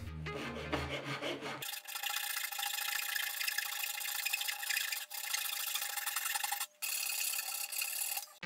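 Fine-toothed handsaw rasping across the end of a small wooden block in quick, short strokes, trimming a rough cut clean. The sawing starts about a second and a half in and stops briefly twice.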